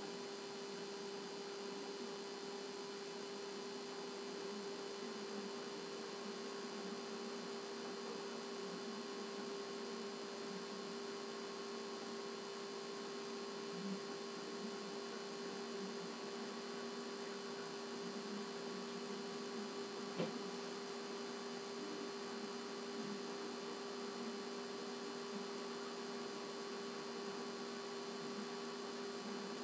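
Steady electrical hum of a few fixed tones over a faint hiss, with a faint click about 14 seconds in and another about 20 seconds in.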